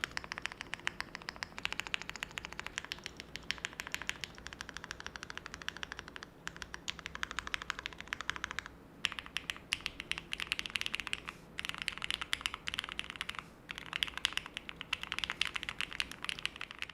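Fast typing on a Qwertykeys QK100 custom mechanical keyboard with Cherry MX Nixie switches in a gasket-mounted polycarbonate plate: a dense stream of key clacks, broken by a few short pauses in the second half.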